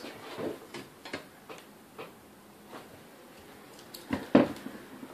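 Light clicks and taps from objects being handled and set down on a workbench, with a louder knock about four seconds in.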